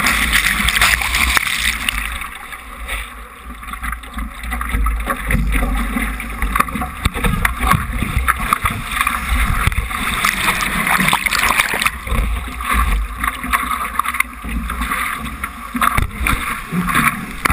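Lake surf water rushing and splashing over a surfboard and the GoPro mounted on it, with wind rumbling on the microphone.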